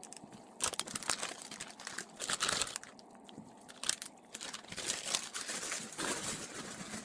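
Plastic instant-noodle packaging crinkling and rustling as it is handled, in several irregular bursts of crackle.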